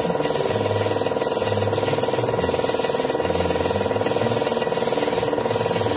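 Gravity-feed compressed-air paint spray gun hissing as it sprays a car door, the hiss breaking off briefly several times as the trigger is eased, over a steady mechanical hum.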